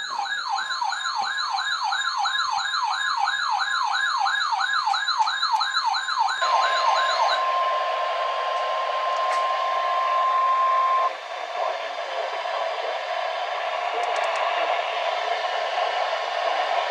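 Emergency alert tones from a weather alert radio. A warbling siren-like alarm sweeps up and down about three times a second until about seven seconds in. Just before it stops, a steady single-pitch alert tone starts, which fits the NOAA Weather Radio warning alarm tone; it cuts off about eleven seconds in and leaves a steady hiss of radio noise.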